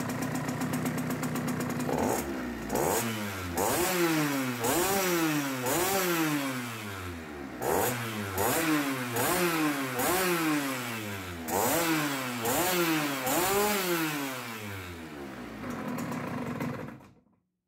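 Small two-stroke Sachs moped engine idling, then blipped on the throttle about a dozen times, each rev rising quickly and falling back, before it settles to idle again.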